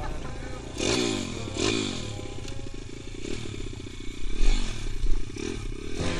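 Small 140cc pitbike engine being ridden, its revs rising sharply twice in the first two seconds and then running up and down. A few short, louder bursts of noise break in, the loudest about four and a half and five seconds in.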